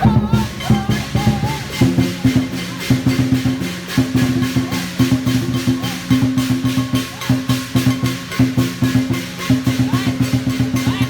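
Dragon-dance percussion band: a drum beaten in a fast, steady, driving rhythm with cymbals clashing on the beats.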